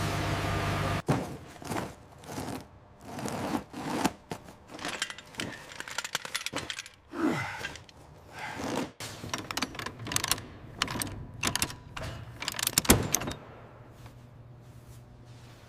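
A steady hum cuts off about a second in, followed by an irregular clatter of knocks, clicks and scrapes, like hard objects or mechanical parts being handled. A softer hum remains near the end.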